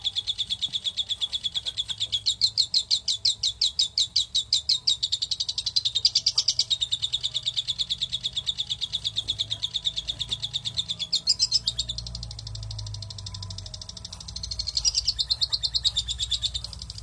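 A young parrot giving a rapid, unbroken train of high begging calls, about ten a second, the call of a chick asking to be fed. Near the end it turns to a denser, less distinct chatter.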